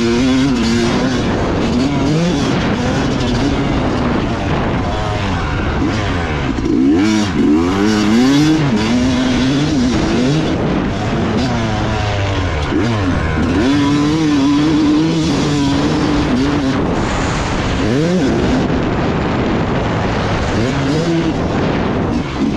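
Yamaha YZ250 two-stroke dirt bike engine being ridden, its revs rising and falling again and again as the throttle opens and closes and it shifts through the gears.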